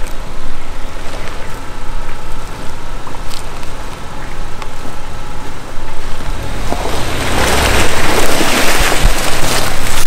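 A Ford Territory's engine running as the car climbs over a rutted dirt bank, joined by a much louder rushing noise with a heavy low rumble from about seven seconds in.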